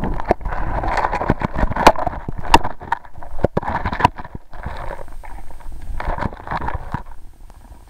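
Handling noise from an underwater camera being set down on a gravel creek bed: irregular sharp knocks and scrapes of the camera against stones, with bursts of rushing water noise, dying down near the end as the camera comes to rest.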